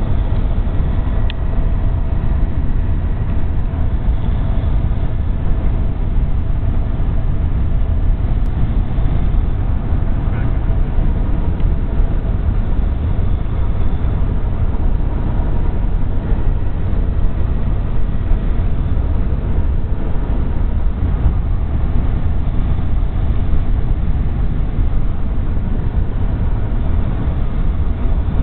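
Steady road and engine noise inside a car's cabin at highway speed, a deep continuous rumble without breaks.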